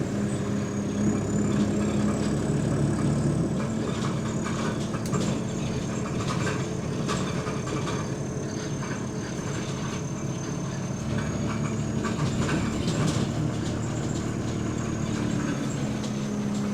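A bus engine running and its body rattling, heard from inside the saloon while the bus drives. The low rumble shifts about three seconds in and again near eleven seconds. A thin, steady high whine sits over it, which the uploader takes to be probably the air conditioning.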